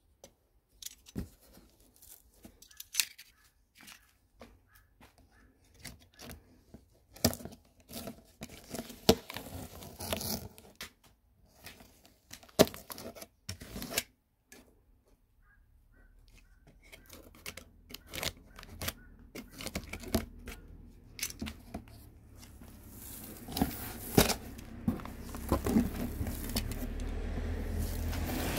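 Packing tape being slit with a box cutter and torn off a cardboard box, with scattered sharp clicks, scrapes and tearing as the box is handled and its flaps pulled open. Over the second half a low rumble builds up steadily and is loudest near the end.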